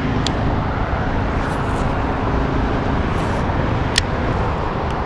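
Steady road traffic from cars crossing the highway bridge overhead: a constant low rumble and tyre hiss. Two sharp clicks stand out, one just after the start and one about four seconds in.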